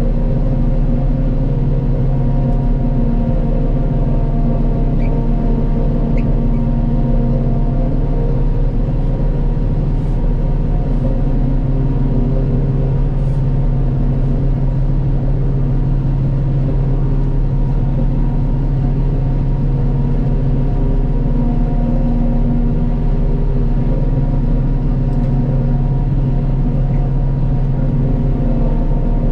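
Forage harvester running steadily while chopping corn, heard from the cab: an even, unbroken engine drone and machine hum.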